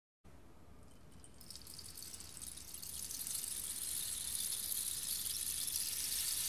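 Rainstick tipped upright, its pellets trickling down inside in a rain-like hiss that swells gradually louder.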